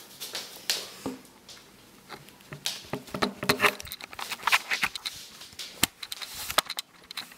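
Irregular clicks, taps and rustles of objects being handled, coming thicker after the first couple of seconds.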